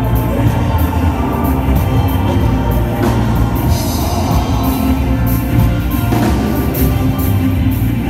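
Drum kit played live with a band: repeated cymbal and drum hits over steady, sustained instrument notes.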